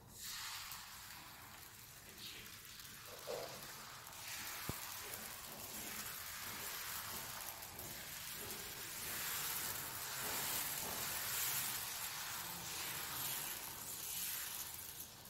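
Red teff batter sizzling as it is poured in a spiral onto a hot injera griddle (mitad). The hiss builds about four seconds in and grows louder as the batter covers more of the pan.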